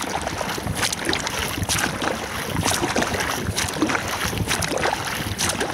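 Motorboat underway at speed: a steady rush of engine and water along the hull, with wind buffeting the microphone.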